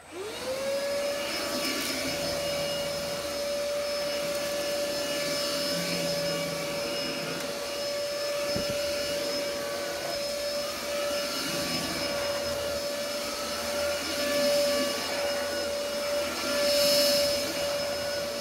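Philips FC6823 cordless stick vacuum switched on: its motor spins up quickly and then runs with a steady whine, growing louder briefly twice near the end.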